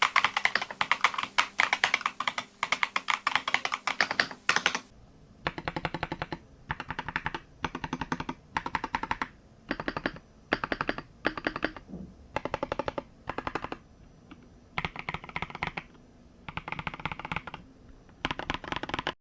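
Typing on a RoyalAxe XL98 mechanical keyboard: a fast continuous run of key clicks, then short bursts of rapid keystrokes separated by brief pauses.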